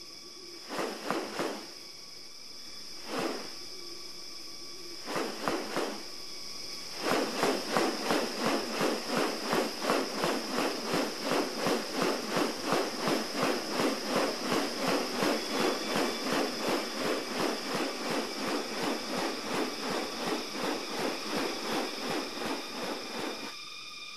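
Rainforest ambience: a steady high insect drone with a few separate animal calls in the first six seconds. From about seven seconds in, a rapid rhythmic pulsing call repeats about two to three times a second and stops shortly before the end.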